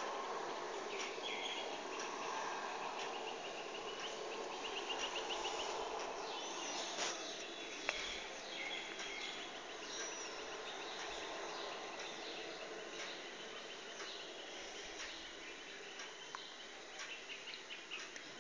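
Steady background ambience with faint high chirps and trills repeating through it, and a few soft clicks.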